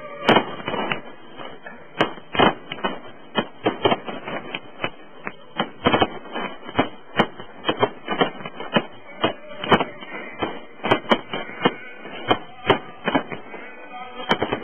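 Fireworks display: aerial shells bursting in a rapid, irregular run of sharp bangs, two or three a second, with crackle between them.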